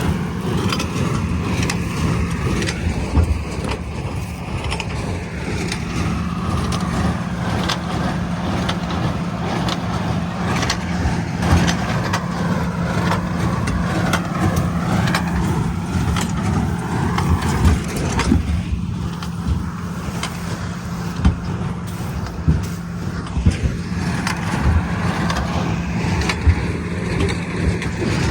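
A tractor running steadily while pulling a hay baler, a constant hum with scattered clunks and knocks from the baling machinery, a few sharper ones in the second half.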